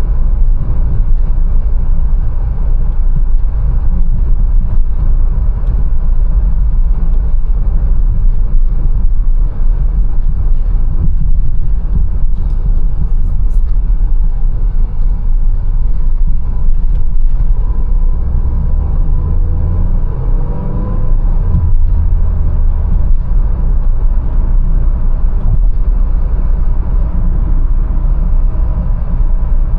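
Mercedes-Benz A180 on the move: a steady low rumble of engine and road noise, with a faint rising whine about two-thirds of the way through.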